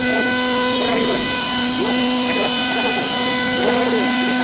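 CNC wood carving router running and cutting a wood panel: a steady spindle whine with a tone that rises and falls roughly once a second as the head moves.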